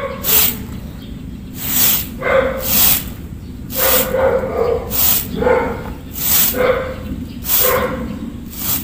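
A stiff stick broom (walis tingting) sweeping dry leaves across a grass lawn, one swish about every second. Short pitched whining sounds come between the strokes.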